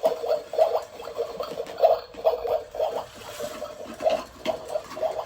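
Small water pump of a toy play-kitchen sink running, with water gurgling in irregular spurts over a steady hum.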